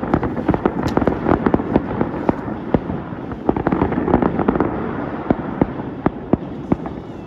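Fireworks show going off: a rapid string of sharp cracks and bangs over a continuous rumble, thinning a little near the end.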